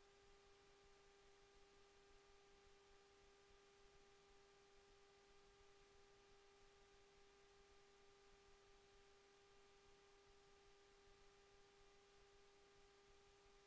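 Near silence with a faint steady hum, one unchanging tone with fainter overtones.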